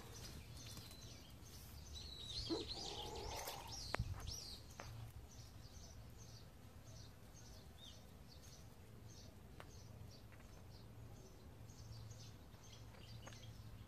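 Faint outdoor birdsong. A short warbling phrase comes a couple of seconds in, then a small bird repeats a short, high chirp about twice a second over a low background hum.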